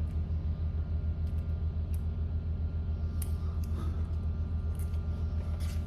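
Steady low rumble of construction machinery working outside, pulsing quickly in level. A few faint light clicks of small tools on the trigger cassette's set screws sound over it.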